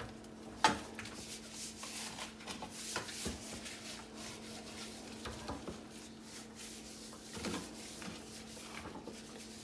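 Hands rubbing seasoning into the skin of a raw whole chicken: soft, irregular wet rubbing and patting, with a sharper knock about a second in.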